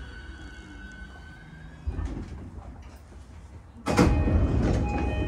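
Interior of a stopped JR East E233-5000 series train: a soft thump about two seconds in, then about four seconds in the passenger doors slide open with a sudden loud rush and short repeated chime tones.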